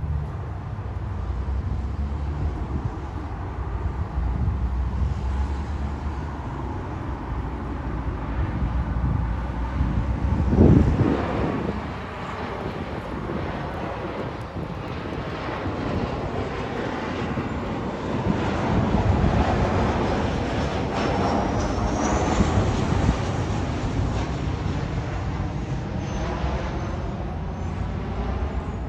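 A jet airliner on final approach passing low overhead, a steady engine roar with a sweeping, phasing whoosh as it goes by. There is a brief louder low rumble about ten seconds in, and a rising high whine appears later.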